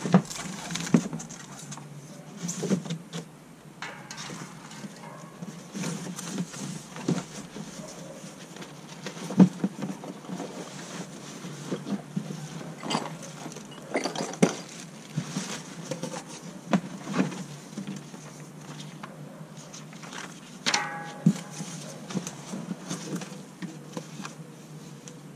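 Hands unpacking a boxed unicycle: irregular knocks, clinks and rustling of packaging and parts being handled, over a steady low hum. There is a short squeak at about two-thirds of the way through.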